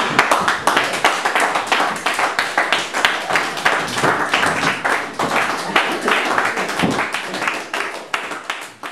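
A group of people applauding: many hands clapping irregularly, dying away near the end.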